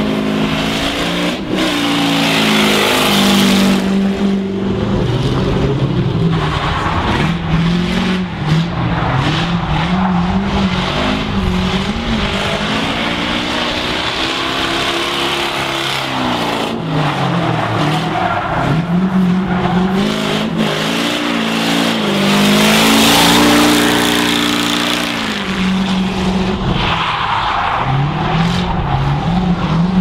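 Drift car engine revving hard, its pitch rising and falling again and again as the throttle is worked, over the screech of tyres sliding; the tyre noise is loudest a few seconds in and again about three quarters of the way through.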